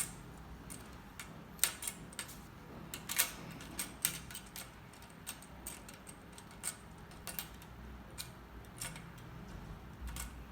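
Plastic magnetic building tiles clicking and clacking as they are handled and snapped together, in a string of irregular sharp clicks.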